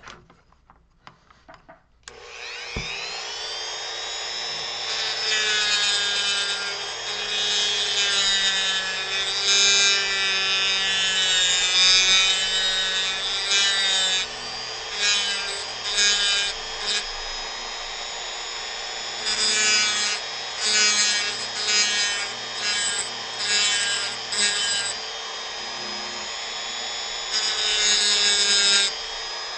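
Dremel rotary tool spinning up about two seconds in to a steady high whine, then grinding into wood in many short passes, with brief easings between them.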